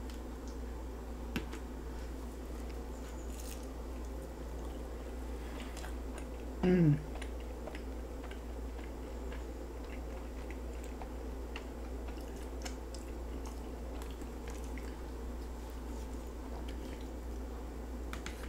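A person chewing and biting a chicken quesadilla close to the microphone: soft, wet mouth sounds with faint clicks over a steady low room hum. About seven seconds in, a short vocal sound falling in pitch is the loudest moment.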